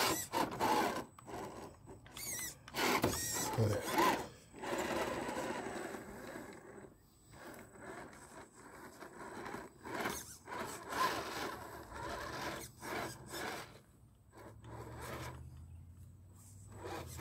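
Brushed 20-turn electric motor and geared drivetrain of a Redcat Gen8 RC rock crawler whining in short stop-start bursts as it crawls up and across wooden planks, with its tires scraping and rubbing on the wood.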